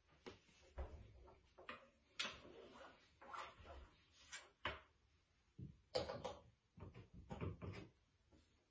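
Faint handling noises: a string of short knocks, bumps and rustles as a HomePod speaker is moved about on a wooden side table and its power cord is handled and plugged in.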